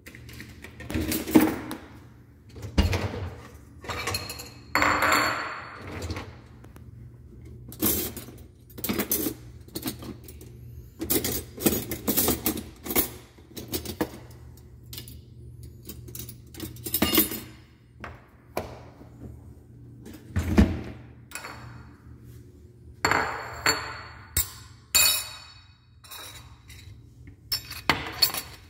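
Dishes clinking and knocking against each other as they are taken out of a dishwasher rack, a series of short, sharp clinks, over a steady low hum.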